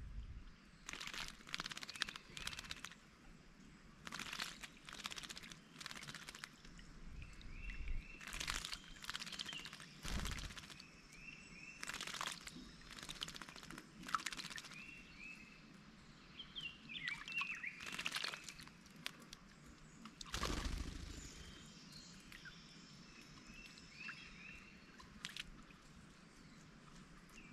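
Rose-breasted grosbeaks bathing in a bird bath: irregular short bursts of splashing and wing fluttering in the water every second or two, with short chirping bird calls between them.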